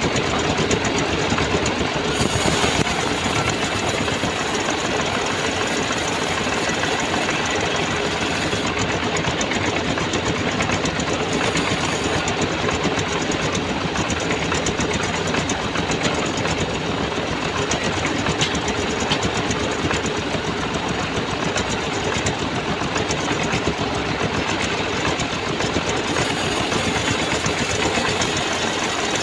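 Engine-driven band sawmill running steadily while its blade saws through a rain tree (trembesi) log. A brighter hiss comes in about two seconds in, drops away after about eight seconds, and returns near the end.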